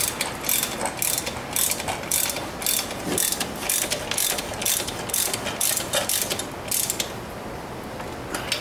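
Ratchet wrench clicking in steady strokes, about two a second, tightening down a bicycle's rear axle nut to hold the wheel with the chain tensioned. The strokes stop about seven seconds in, with one more click near the end.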